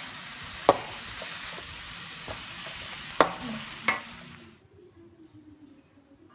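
Egg noodles and vegetables sizzling in a hot wok while a spatula stirs and tosses them, with three sharp clangs of the spatula against the wok. The sizzling cuts off about four and a half seconds in, leaving faint room noise.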